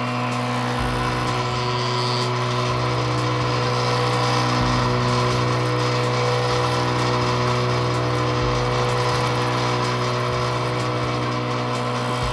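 PACE Technologies GIGA vibratory metallographic polisher running: a steady electric hum with a dense buzz over it, with the specimen holders vibrating against the abrasive in the bowl. The buzz grows a little louder over the first few seconds as the speed (voltage) is raised, which increases the amplitude of the vibration, then eases slightly as the speed is brought back down.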